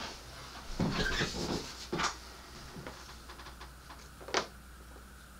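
Small objects being handled on a workbench: a few light knocks and rustles, bunched about a second in, with single sharper clicks at about two seconds and again near the end.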